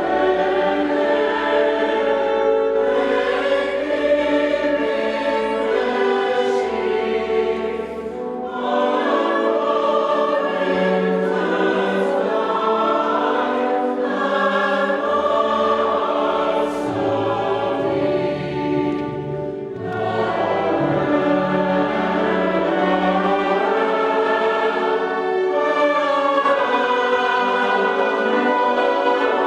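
A choir singing sacred music in sustained harmony, with two brief dips between phrases, about a third and two thirds of the way through.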